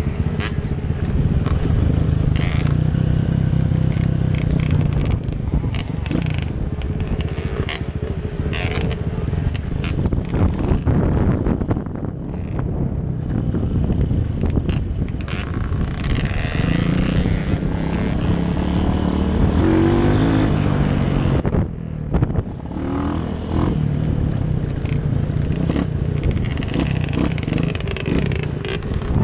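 Dirt bike engine running at slow trail pace, heard close up from on the bike, its pitch rising and falling as the throttle is opened and closed.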